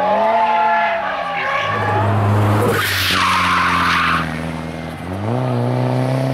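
Drift car's engine revving up and down through a slide, with the tyres squealing for about a second and a half in the middle. Near the end the engine climbs in pitch again as it accelerates away.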